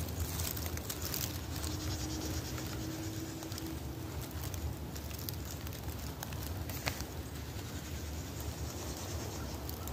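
Steady rustling hiss of a dry, leaf-covered wood, with a faint click about seven seconds in.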